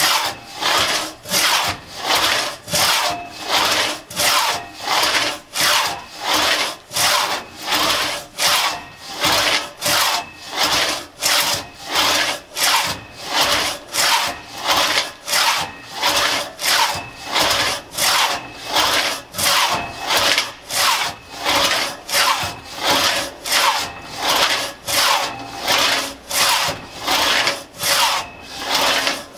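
A 4.5-foot Tuttle-tooth one-man crosscut saw cutting through a log by hand, each push and pull stroke a burst of teeth cutting wood. The strokes come in a steady, even rhythm of about one and a half a second.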